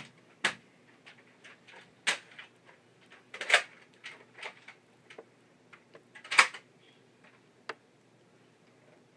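A handful of short, sharp clicks and knocks at irregular intervals, the loudest about three and a half and six and a half seconds in.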